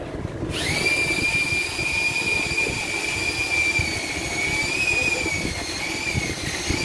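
A powered pole saw's motor starts about half a second in and runs with a steady high whine, its pitch wavering a little later on as the worker cuts into fallen branches.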